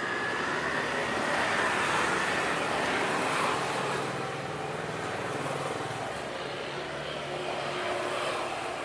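Vehicle noise, a steady rush that swells about a second in and eases near the end, with a low steady engine hum under it in the middle.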